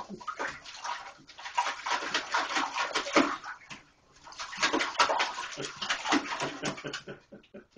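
German Shepherd lapping and splashing water in a toilet bowl, a fast run of wet slaps in two spells with a short pause about four seconds in.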